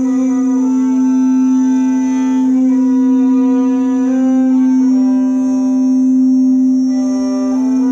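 Sound-bath music: a steady drone with a slow melody of long held notes moving up and down in steps above it.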